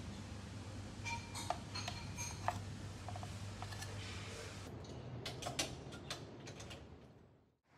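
Light clicks and taps, then a cluster of sharp metallic clicks and rattles from the lock of a metal grille door gate being worked by hand.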